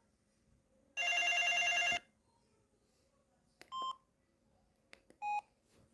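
Samsung SGH-X210 mobile phone's speaker playing a buzzy ringtone tone for about a second, then two short beeps a second and a half apart, each with faint clicks.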